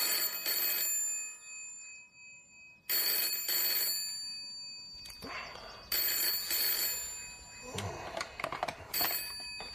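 Telephone ringing: four rings about three seconds apart, each ring about a second long.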